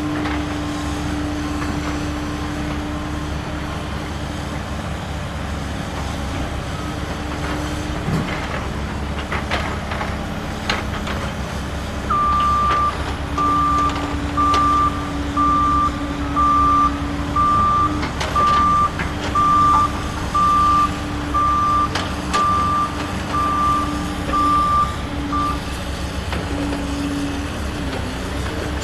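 A toy truck's reversing-alarm sound effect, a regular series of high beeps starting about twelve seconds in and stopping a few seconds before the end, over a steady hum. Scattered clicks and knocks of plastic toys run throughout.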